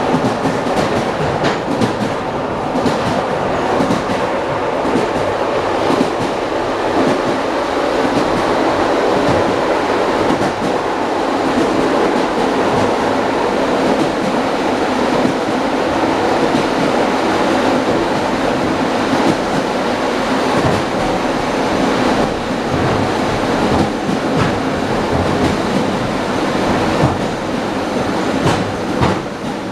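Wheels of an ED9M electric multiple unit clattering over rail joints at speed, heard from inside the car's vestibule: a steady running rumble broken by irregular sharp knocks.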